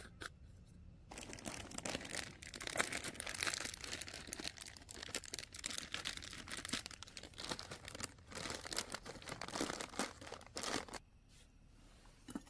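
A plastic noodle packet being crinkled and torn open by hand: a run of crackling and rustling that starts about a second in and stops shortly before the end.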